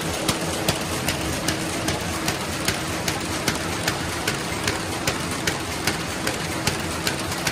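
Paper bag machine running at production speed: sharp, even clicks about two and a half times a second, one for each bag cycle at its rated 150 bags a minute, over a steady mechanical hum.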